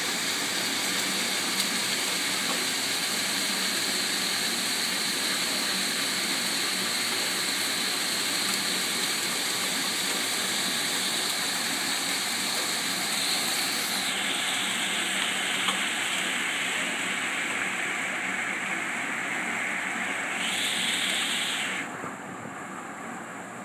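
Heavy hail and rain falling hard, a steady hiss with no breaks. The sound drops noticeably near the end.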